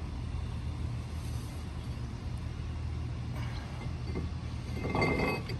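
A steady low background hum, with rustling and handling noise building over the last couple of seconds.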